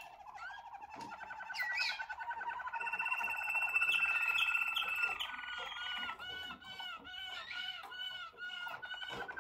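A Malinois Waterslager song canary singing: a rolling trill in the first few seconds, then a run of repeated rising-and-falling notes, about two or three a second, through the second half.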